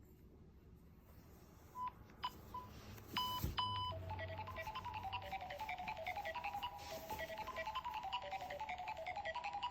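Electronic tones: a few separate short beeps about two seconds in, then from about four seconds in a fast repeating sequence of short electronic notes, like a phone ringtone or alert tone.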